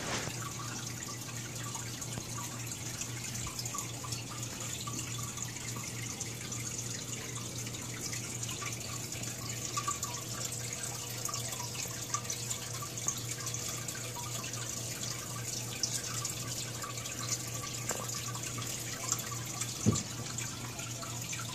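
Aquarium filter running: water steadily trickling and splashing over a low, steady hum. A brief knock comes right at the start and another near the end.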